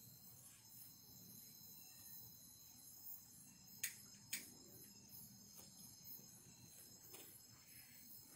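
Faint night insect chorus, a steady high-pitched trilling. About four seconds in come two sharp clicks half a second apart, the loudest sounds here, and a fainter click near the end.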